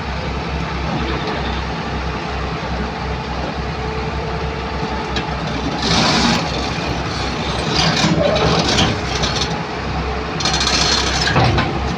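Excavator's diesel engine running steadily with a low pulsing beat, broken by louder noisy spells about six seconds in and again near the end.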